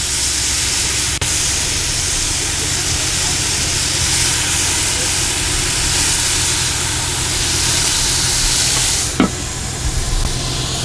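Beef heart kebab pieces sizzling steadily on a hot grill grate. The sizzle drops sharply about nine seconds in, as the grill lid is closed.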